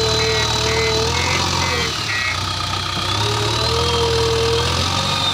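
Diesel engine of a JCB 3DX backhoe loader running, its note dipping briefly about two seconds in, with a wavering whine over it. A rapid beeping stops about two seconds in.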